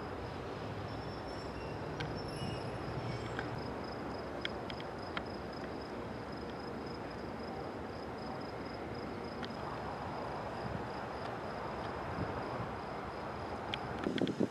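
Outdoor night ambience: insects keep up a steady high-pitched trill over a low, even background rumble, with a few faint clicks and some soft knocks near the end.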